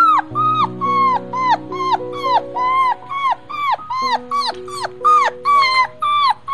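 A dog yelping in a quick series of short, high calls, each rising then falling in pitch, about two or three a second. Background music with held chords plays underneath.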